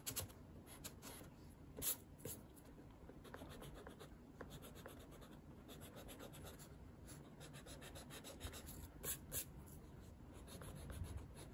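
Pencil scratching on sketchbook paper in quick, repeated shading strokes, faint throughout, with a few louder strokes about two seconds in and twice near the end.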